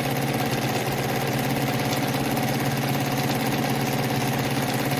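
Kohler WZ semi-industrial sewing machine running steadily at a constant speed while sewing a wide zigzag stitch, its motor and needle mechanism going without a break.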